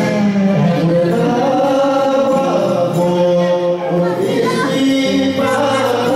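Live Greek folk band playing for a circle dance: clarinet, laouto and percussion, with a voice singing over them. The music runs on steadily without a break.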